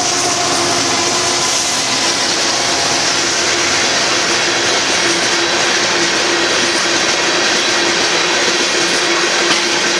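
A long string of loaded aggregate freight cars rolling past: steady, loud wheel-on-rail noise with no let-up, and a steady tone running under it.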